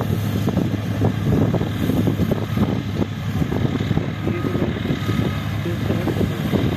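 John Deere 5310 GearPro tractor's three-cylinder diesel running steadily under load, driving a straw reaper, heard from a distance as a steady drone under an uneven low rumble.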